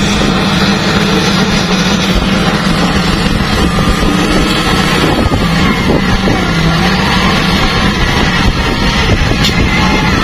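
LiuGong wheel loader's diesel engine running steadily under load as the machine pushes into dirt and lifts its bucket, with faint whines that rise and fall in the middle and near the end.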